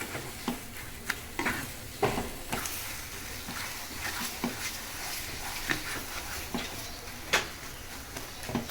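A spatula stirring and scraping a mashed sweet pumpkin mixture around a pan on the heat, with irregular scrapes and knocks against the pan over a soft sizzle as the sugar melts.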